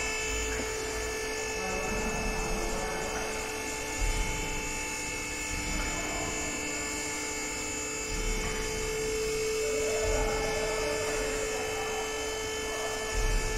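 Electric hydraulic power unit of a two-post car lift running steadily as it raises a test load of about 1.6 tonnes: a constant motor-and-pump whine over a hum, with a few dull low bumps.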